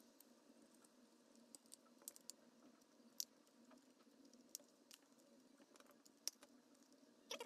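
Near silence with scattered faint clicks and taps of a laptop charger's plastic casing being handled and its parts fitted together; two sharper clicks stand out, about three seconds in and about six seconds in.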